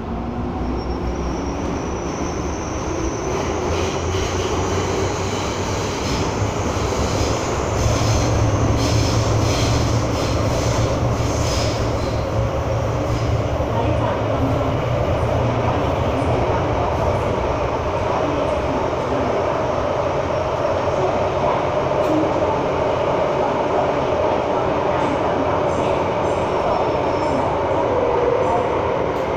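Hong Kong MTR M-Train heard from inside the car while running through a tunnel: steady wheel-on-rail rumble, with a high whine that rises over the first several seconds as the train picks up speed, then a few clicks over rail joints before it settles into steady running.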